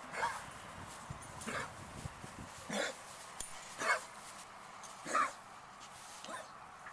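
A dog coughing over and over: about six short coughs, a little over a second apart.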